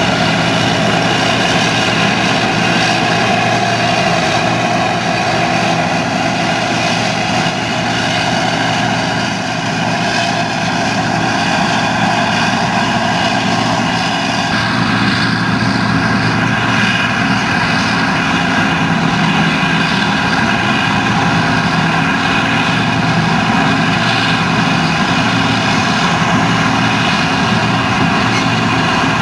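John Deere combine harvesting soybeans: its diesel engine and threshing machinery running steadily under load, a constant hum with several steady higher tones over it. The mix of tones shifts slightly about halfway through.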